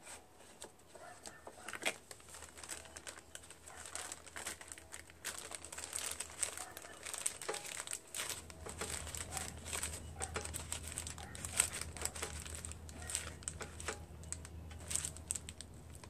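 Thin clear plastic bag crinkling and crackling in quick irregular bursts as hands wrap and bunch it over a lawn mower engine's gas cap.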